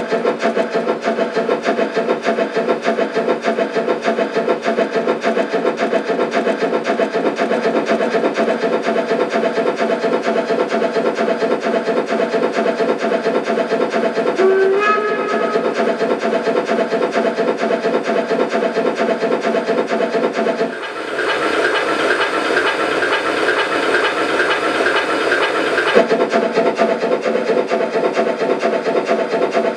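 Steam-locomotive sound from the Zimo sound decoder of an LGB G-scale model of HSB 99 222 (the 'Harzbulle') running on rollers, played through the model's small loudspeaker: fast, even chuffing throughout, a short whistle about halfway, and a steam hiss lasting about five seconds in the second half.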